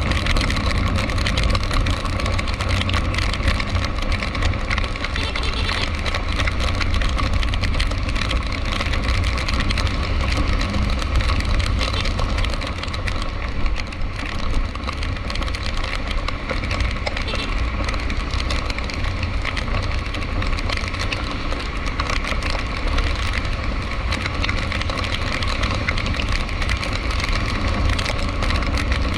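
Steady car road noise and engine rumble in rain-soaked traffic, with a constant crackling hiss over it.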